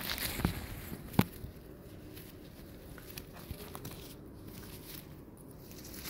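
Faint handling noise with a few small clicks and one sharp knock about a second in.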